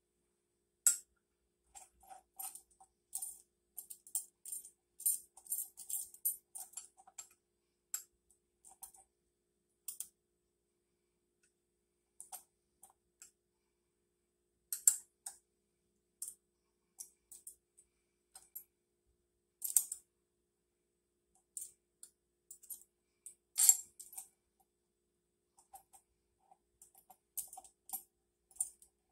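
Metallic clicks and ticks from a three-jaw gear puller being worked on the flywheel of a 1964 Johnson 3 hp outboard. They come in quick runs for the first several seconds, then as scattered single clicks, a few of them louder.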